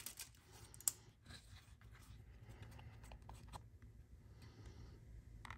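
Faint handling of a cardboard knife gift box in the hands: a few light taps and scrapes, with one small click about a second in.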